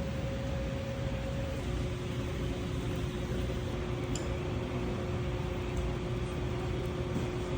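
Steady mechanical hum with a rushing noise and low rumble; the hum's pitch steps down slightly about two seconds in.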